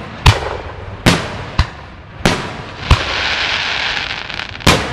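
Aerial fireworks bursting overhead: six sharp bangs at uneven intervals, with a steady hiss running under them from about three seconds in.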